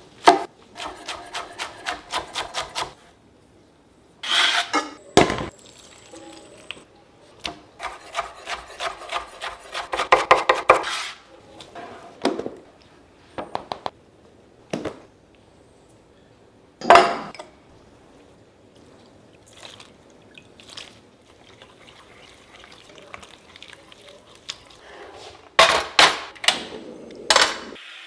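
Kitchen prep sounds: a knife chopping spring onions on a wooden board, in two quick runs of strokes in the first half. A few sharp knocks of utensils and bowls, and quieter rubbing and scraping in a steel mixing bowl in the second half.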